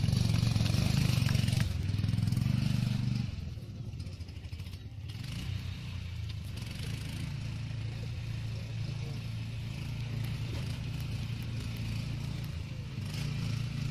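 Single-cylinder Briggs & Stratton engine of a Baja off-road buggy running under throttle as the car is driven. It is loud for the first three seconds, turns fainter after that, and grows louder again near the end.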